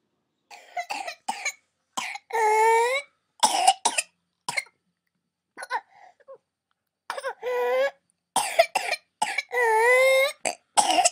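Whooping cough (pertussis): runs of short, rapid coughs, each broken by a long, high-pitched whooping intake of breath, twice.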